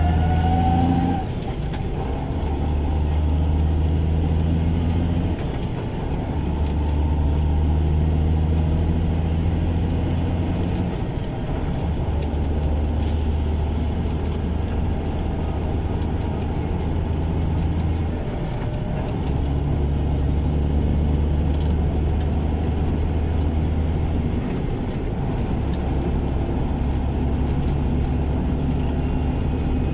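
Cummins N14 diesel engine of a truck running under way: a strong low drone that breaks off briefly about every five to seven seconds and picks up again each time.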